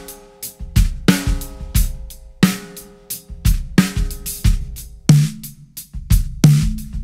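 A drum kit groove of bass drum, hi-hat and a PDP Concept Series steel snare drum. For the first five seconds the snare is unmuffled and rings with a sustained overtone after each hit. About five seconds in, the sound switches to the snare muffled by an old drum head laid on top, so each hit is short and dull without the ring.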